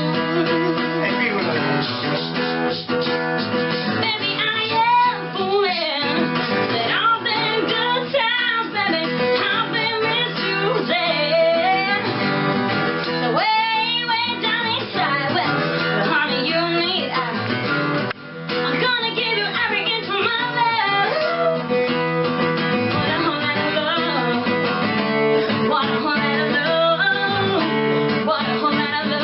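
Music: a song with guitar and a singing voice, with a brief drop in level about 18 seconds in.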